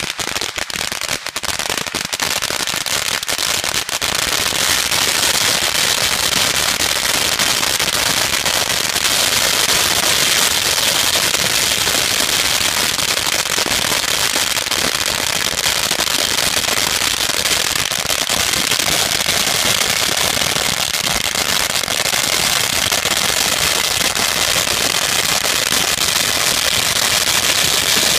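A long string of about 60,000 firecrackers going off. For the first few seconds they pop as separate bangs, then from about four seconds in they merge into a dense, continuous crackle of rapid bangs.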